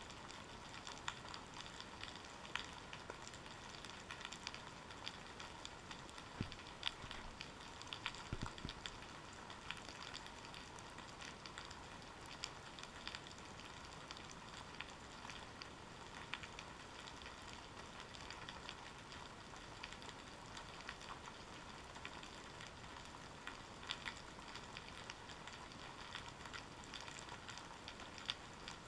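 Faint underwater ambience picked up through a GoPro Hero 3's waterproof housing on the seabed: a steady crackle of many tiny clicks, with a couple of dull low knocks about six and eight seconds in.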